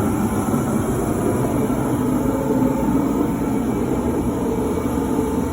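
Space heater running loud with a steady, even rushing hum.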